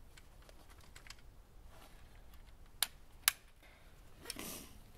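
Crosman Legacy 1000 multi-pump air rifle being handled and readied for a shot: light clicks, then two sharp metal clicks about half a second apart around three seconds in. Near the end comes a half-second rush of air as the forearm pump lever is stroked to charge the rifle.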